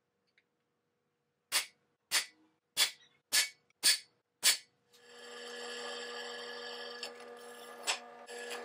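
Six sharp metallic taps of a center punch being struck on a steel plate, about one every half second. From about five seconds in, a benchtop drill press runs steadily, drilling through the plate steel.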